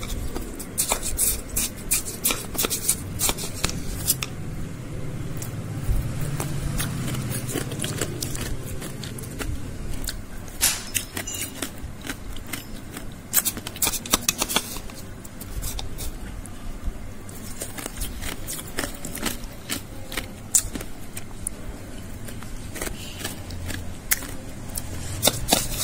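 Metal spoon scraping and crunching through crushed ice in a bowl, with many irregular sharp crunches.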